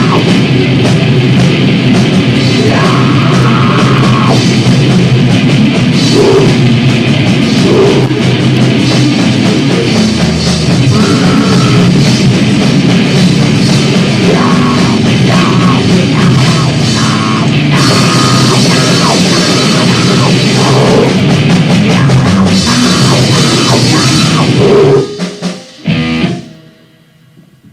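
Loud noise-rock song from a band, with pounding drums and heavily distorted guitar in a dense wall of sound, stopping abruptly about 25 seconds in.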